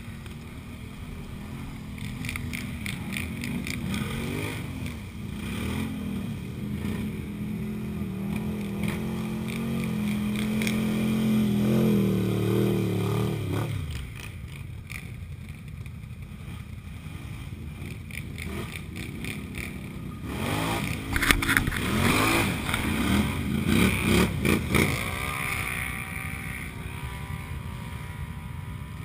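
ATV engine under throttle pushing through slush and mud, its pitch climbing for about fourteen seconds before it drops off suddenly. After a quieter stretch it revs up and down in a run of short bursts, then settles to a steadier, lower run.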